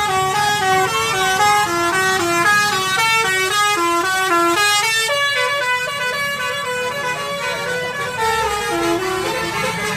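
A tour bus's 'basuri' multi-tone air horn playing a rapid tune, each short note held about a quarter second before stepping to the next.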